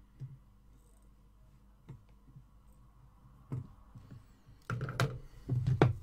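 Small clicks and knocks of hand work at a soldering bench. A few faint taps come first, then a louder clatter with one sharp click near the end, as the soldering iron is put down and the circuit board is handled on the table.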